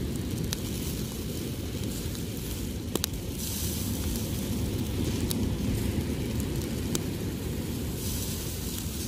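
Meat sizzling and crackling over a charcoal grill: a steady hiss with a few sharp pops, swelling briefly a few seconds in and again near the end, over a steady low rumble.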